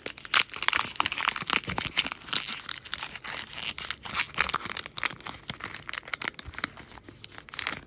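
A Pokémon booster pack's foil wrapper being torn open and crinkled by hand: dense, continuous crackling and rustling that stops abruptly at the end.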